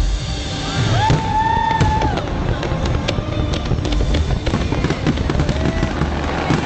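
Fireworks going off, with a rapid run of sharp crackling pops and bangs over a steady rumble. A brief held whistling tone sounds about a second in.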